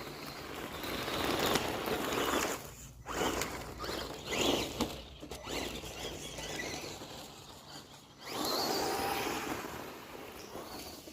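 Traxxas RC truck driving and revving in several bursts, its motor whine rising with throttle over the hiss of its tyres on dirt. The loudest runs are at the start and again about eight seconds in.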